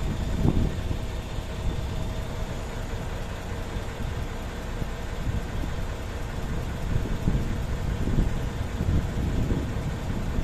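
Diesel engine of a truck-mounted mobile crane running steadily while the crane swings a suspended mobile home on its hook, with a few louder low swells.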